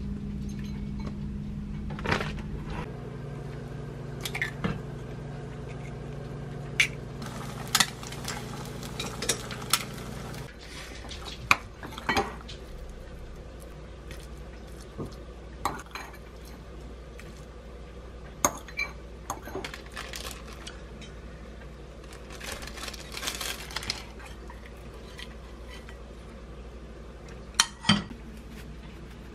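A spoon clinking and scraping against a ceramic bowl and plate as fried rice is served, with scattered sharp clinks throughout. A low steady hum runs under the first ten seconds or so and then stops.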